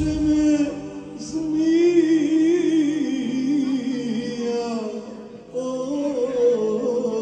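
A man singing a slow folk song live through a microphone and PA, drawing out long notes whose pitch wavers, over a steady backing accompaniment. He pauses briefly about five seconds in, then starts a new phrase.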